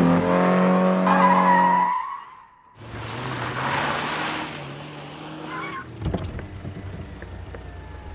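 An ambient synth chord holds and stops about two seconds in. After a short lull, a car skids in with its tyres rushing and a brief squeal at the end, then its engine rumbles low at idle.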